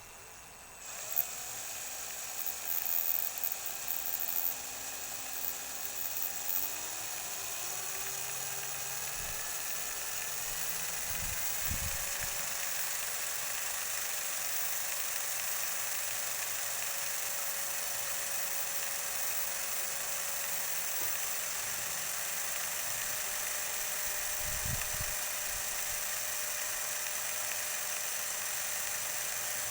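Small high-speed electric motor whining steadily, its pitch climbing in small steps for the first ten seconds or so and then holding.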